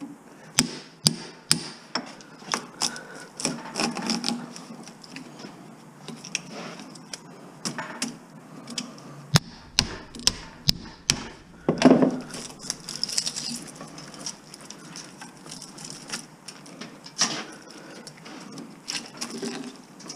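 Irregular metal knocks, clicks and scraping as copper windings are pried out of an electric motor stator with a hand tool, with a longer, louder scrape about twelve seconds in. The stator was not cut properly, which the scrapper blames for the windings coming out hard.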